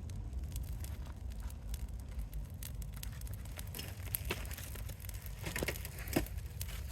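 Wood fire crackling, with sharp snaps and pops over a steady low rumble. The pops come thicker in the second half, the loudest near the end.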